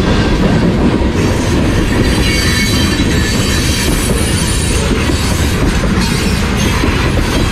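A train rolling past at close range: a loud, steady rumble and rattle of wheels on rails, with a high-pitched wheel squeal running through it.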